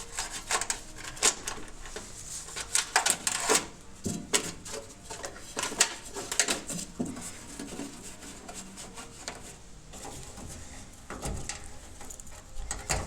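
Irregular clicks, knocks and rattles of an old car wiring harness and its connectors being worked loose from the chassis by hand. The noises are busiest in the first half and sparser later.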